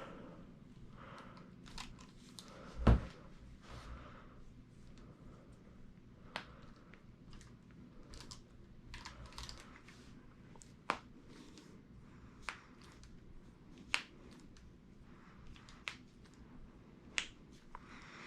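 Quiet hands-on treatment noises on a chiropractic table: one heavier thump about three seconds in, then scattered sharp clicks every second or two.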